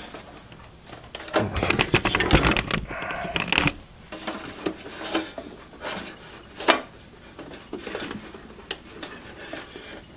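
Cables and plastic connectors being handled and pushed about inside a desktop computer case: a dense stretch of rubbing and clatter a second or so in, then scattered single clicks.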